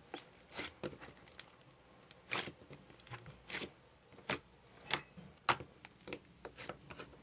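Slime being pressed and stretched by hand, giving irregular sharp sticky clicks and pops, roughly one or two a second. The maker suspects the slime is too stiff.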